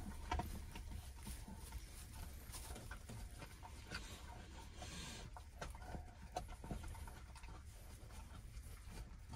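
Faint rustles and small clicks from three-week-old Great Pyrenees puppies shifting against each other in pine-chip bedding as they huddle to sleep.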